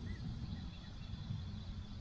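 Quiet outdoor pond ambience: a low steady rumble, with a faint short bird-like chirp just at the start.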